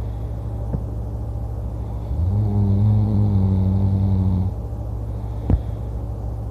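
A man snoring loudly in his sleep: one long, low, pitched snore from about two seconds in until past the middle, with a quieter low rumble of breathing before and after it. A single sharp click comes near the end.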